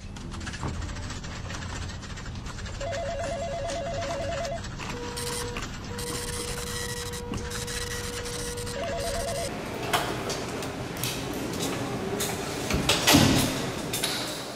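Electronic telephone ringing with a warbling trill, twice, about six seconds apart, with a steady tone sounding between the two rings. After that come rustling and movement noises, with a sharp clatter about thirteen seconds in.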